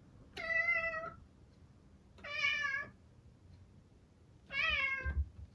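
Long-haired domestic cat meowing loudly three times, each call about two seconds after the last. The cat is crying out for its owner, who has stepped away. A soft low thud comes near the end.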